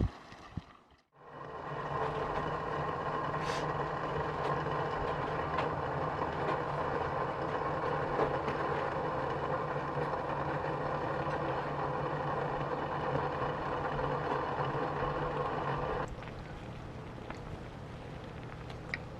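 A steady engine drone, as from a motor vehicle running; about sixteen seconds in it drops sharply to a quieter, steady hum.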